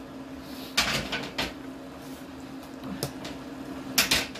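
A few sharp knocks and clatters of kitchen utensils against cookware: a pair about a second in, one near the middle, and the loudest pair near the end, over a steady low hum.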